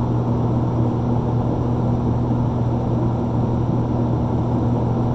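A steady, unchanging low mechanical hum with no arrow shot or other sudden sound.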